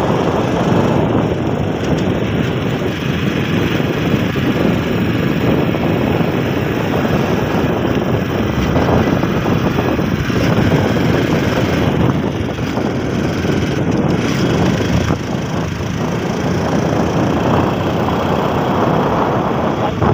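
Wind rushing over the microphone, mixed with engine and tyre noise from a vehicle moving along at speed.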